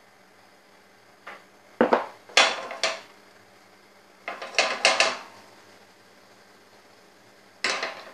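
A frying pan clattering against the metal pan supports of a gas hob as it is moved and tilted to swirl pancake batter around it. There are three bursts of sharp metallic knocks: a little under two seconds in, around four and a half seconds, and near the end.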